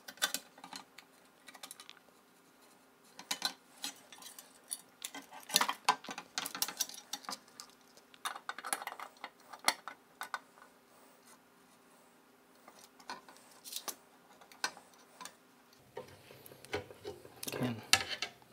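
Irregular light metallic clicks and clinks of small hand tools and screw hardware knocking against a metal 3D-printer heated bed as a bolt and nut are worked by hand.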